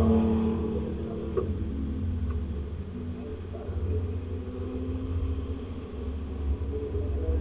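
Porsche 911 RSR's air-cooled flat-six running at low revs: the engine note drops at the start, then holds a low, fairly steady drone.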